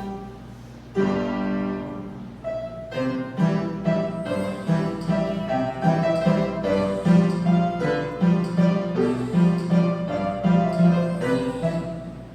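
Instrumental background music led by piano, with a steady pattern of repeated low notes under a melody.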